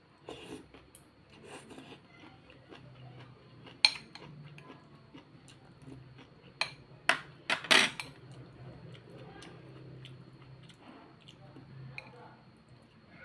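Metal chopsticks and a spoon clinking against a ceramic soup bowl while eating noodles: several sharp clinks, the loudest about four seconds in and a quick cluster from about six and a half to eight seconds, between quiet eating noises, with noodles slurped at the start.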